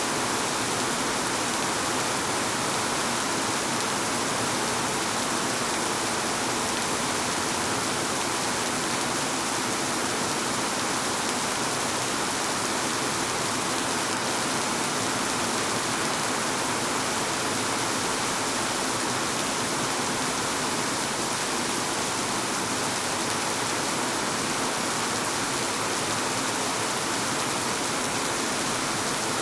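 Steady rain falling in a city, an even hiss of rain with no single drops standing out.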